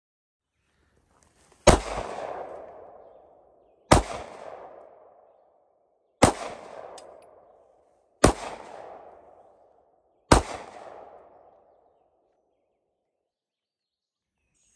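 Five sharp, loud bangs about two seconds apart, each trailing off in an echo that fades over a second or two.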